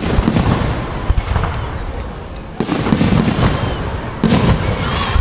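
Aerial firework shells bursting overhead: a series of sharp booms, each followed by a rumbling tail, with big bursts about two and a half and four seconds in.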